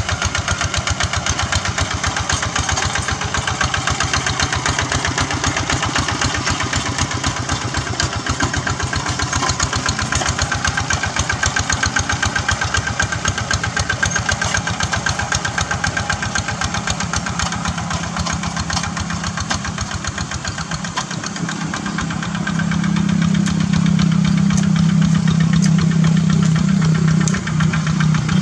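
Two-wheel hand tractor's single-cylinder diesel engine chugging steadily under load as it pulls a plow through paddy mud, in a fast even knock. About three quarters of the way in it grows louder and deeper.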